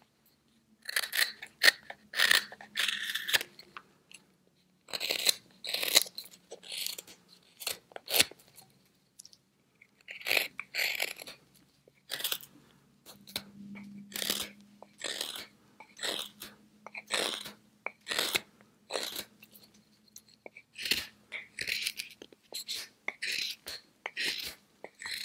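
Carving knife slicing shavings off a wooden spoon blank in short pull cuts towards the thumb, each stroke a brief dry crunching scrape. The cuts come in runs of one or two a second, with short pauses between runs.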